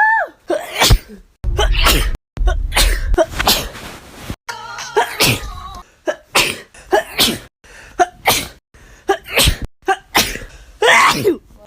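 A woman sneezing over and over in a rapid fit, with short high-pitched gasping 'ah' intakes before several of the sneezes. The sneezes are chopped together with abrupt cuts.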